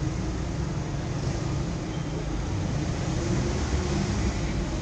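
Busy street traffic: a steady rumble of passing cars and engines.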